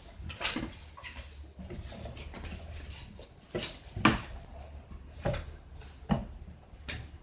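Hands pressing and patting Play-Doh against a wooden tabletop: irregular thumps and knocks, about six of them, the loudest about four seconds in.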